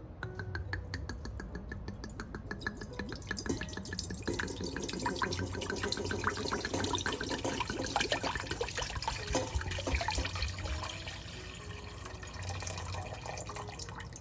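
Water running and splashing, with a dense patter of drips and small splashes that grows louder in the middle and eases off near the end.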